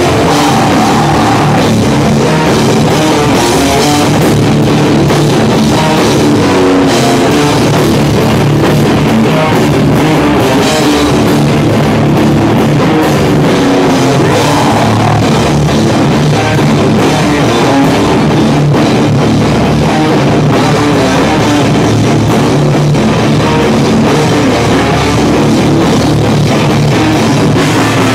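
Hardcore punk band playing live and loud: distorted electric guitar, bass guitar and a drum kit.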